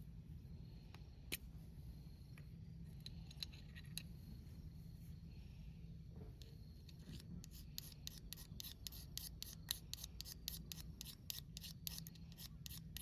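Quiet, fast, regular clicking, about five clicks a second, starting about halfway through over a steady low rumble, with a few scattered clicks before it.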